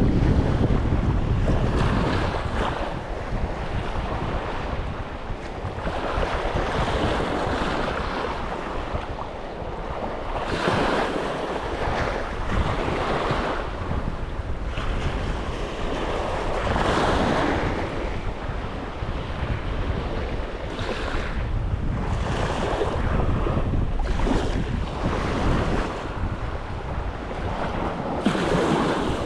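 Sea waves washing onto the beach in repeated surges every few seconds, with wind buffeting the microphone in a steady low rumble.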